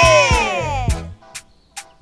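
Upbeat background music with sharp percussion hits, topped in the first second by a pitched tone that bends up and then slides down.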